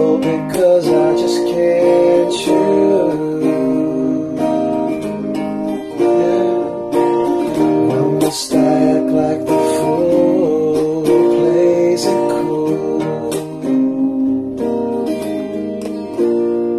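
Acoustic guitar strummed and picked, playing a slow song.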